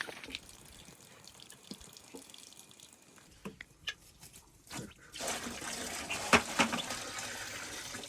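A few light knocks and clicks, then water pouring or running from about five seconds in, as a steady rush.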